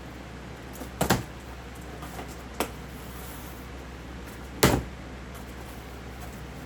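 Three knocks and bumps from handling a boxed box fan while it is unpacked, the loudest about two-thirds of the way in, over a steady low hum.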